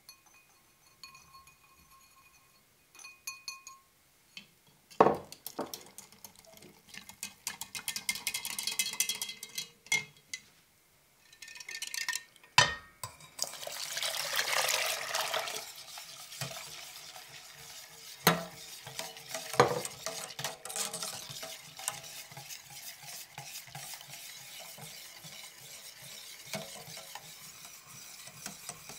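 A wire whisk clicking rapidly against a glass measuring jug as pudding powder is mixed into water, then the mixture pouring into a stainless steel pot of raspberries, followed by steady whisking in the pot with a few sharp knocks of metal on metal.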